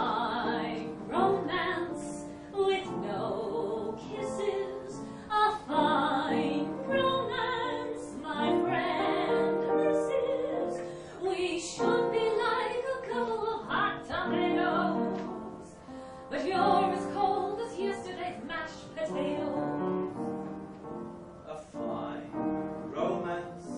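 A woman singing a stage show tune over accompaniment, in a theatrical, operatic style.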